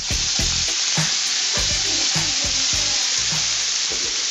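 Chicken pieces sizzling in hot oil in a frying pan, a steady loud hiss. Music with a regular beat plays underneath and stops near the end.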